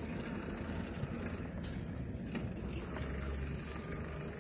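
Steady, high-pitched drone of cicadas in summer trees, with a low rumble underneath.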